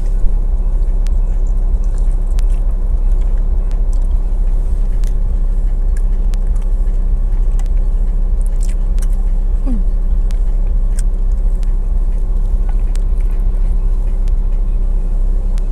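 Chewing and biting into spicy chicken wings, with faint scattered clicks, over a steady low hum.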